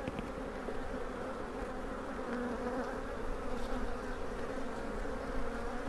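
Honeybees of an opened hive buzzing in a steady, continuous hum.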